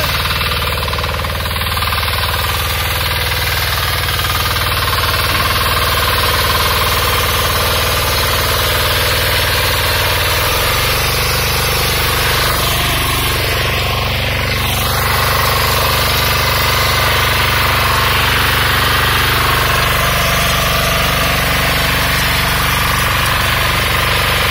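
Agrimate 9 hp single-cylinder diesel power tiller running steadily under load while its rotary tines till soil, a continuous rapid diesel clatter. It gets slightly louder about halfway through.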